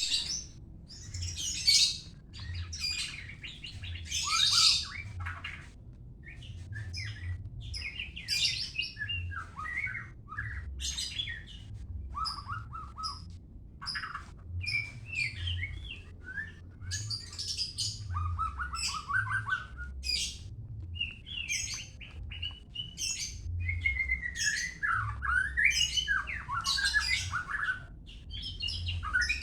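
White-rumped shama (murai batu, Medan type) singing a long, varied song: short phrases of clear whistles, slurred glides and rapid rattling notes, one after another with brief gaps.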